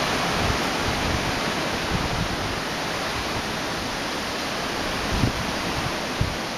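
Wind blowing on the microphone: a steady rushing hiss with uneven low rumbling buffets, two stronger gusts thumping about five and six seconds in.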